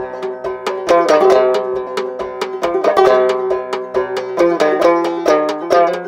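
Solo banjo played in a quick, steady rhythm, the picking hand striking the strings several times a second over a repeated note that runs under the changing chords.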